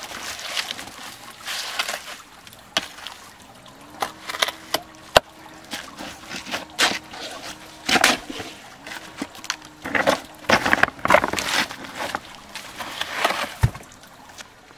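Steel shovel scooping wet cement mortar and slapping and scraping it onto a river-stone wall: an uneven run of wet scrapes and sharp knocks of the blade against stone.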